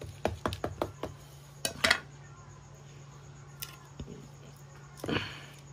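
Machete blade clicking and scraping against a bamboo handline spool and the tiled floor: a quick run of light clicks in the first second, two louder clacks just before two seconds in, and a short scrape near the end.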